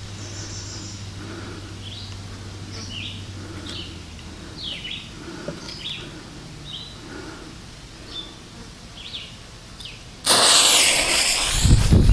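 Small birds chirping in short repeated calls, then about ten seconds in a lit firework ignites with a sudden loud hissing spray of sparks, followed by a low rumbling.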